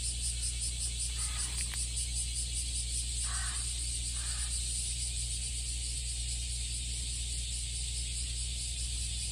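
Cicadas singing in a dense chorus: a steady, high-pitched drone with a fast pulsing shimmer, over a low steady hum.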